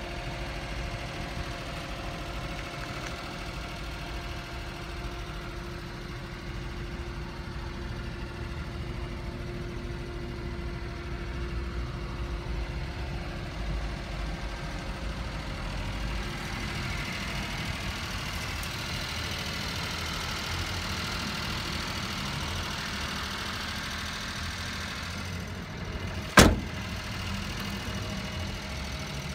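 Daihatsu Hijet kei truck's engine idling steadily, heard from inside the cab. Near the end the cab door clunks once, a single sharp knock and the loudest sound.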